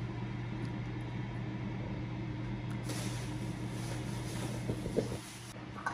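Saucepan of sugared cinnamon water simmering with a stick of butter melting in it: a hiss from the bubbling liquid for a few seconds in the middle, over a steady low hum. A couple of light knocks near the end from a silicone spatula against the pan.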